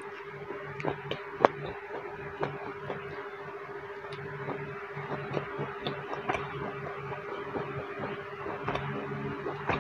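Close-miked eating sounds of someone chewing a mouthful of stir-fried tuna and vegetables: soft chewing with many small, sharp mouth clicks and taps scattered through it, over a steady low hum.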